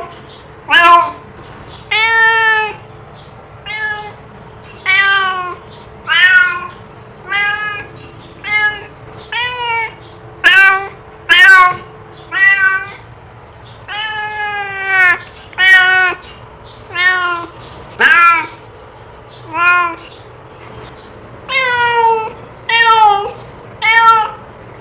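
A domestic cat meowing over and over, about one call a second, each meow rising and falling in pitch. There is a short pause a little before the end.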